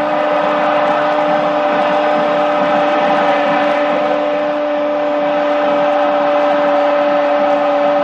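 A football commentator's long goal cry, one 'goooool' held at a single high, steady pitch the whole time, over a stadium crowd's roar.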